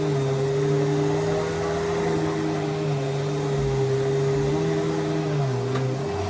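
Riccar Vibrance upright vacuum cleaner running steadily as it is pushed over the floor. Its lower hum wavers up and down in pitch and drops lower just before the end.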